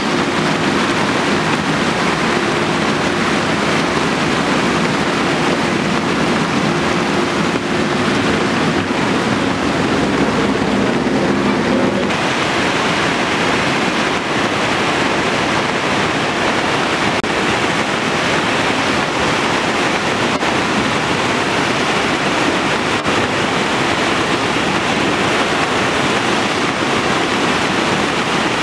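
Muddy floodwater rushing across a street, with a backhoe's diesel engine running steadily under it. About twelve seconds in this gives way to the steady, heavy rush of a brown river in full flood.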